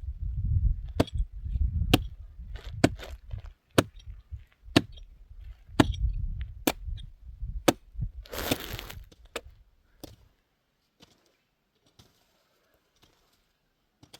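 A series of sharp knocks or chopping strikes, roughly one a second, over a low rumble, with a short rushing noise a little past the middle. The strikes stop about ten seconds in, leaving only a few faint clicks.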